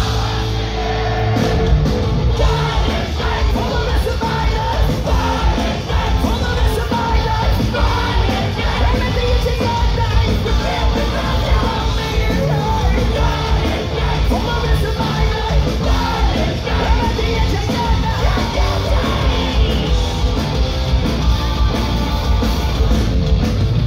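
Punk rock band playing live at full volume, with shouted lead singing over the band.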